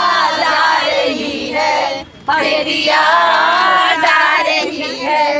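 A group of voices singing a Hindi song together, unaccompanied, in two sung phrases with a short breath break about two seconds in.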